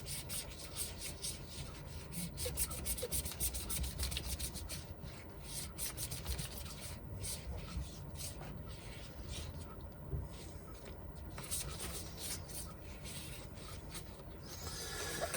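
Cleaning cloth rubbed back and forth over an iPhone's glass screen in quick repeated wiping strokes, cleaning it before a screen protector goes on.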